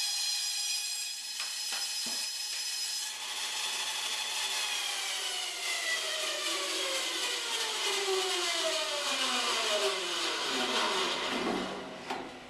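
Band saw with a 3/8-inch blade of about 4 teeth per inch cutting through a small, well-seasoned log, a steady whine at first. From about three seconds in, its pitch falls steadily as the saw winds down, dying away near the end.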